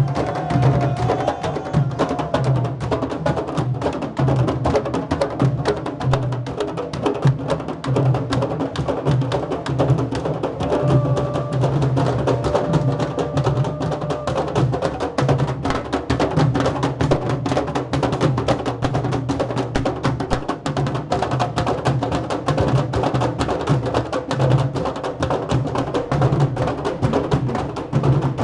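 A street drum band playing many large hand-carried drums together in a fast, steady rhythm, with sharp clicking strokes over the low drum beats.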